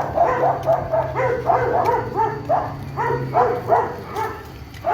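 Dogs barking rapidly and over and over, several barks a second, easing off briefly near the end.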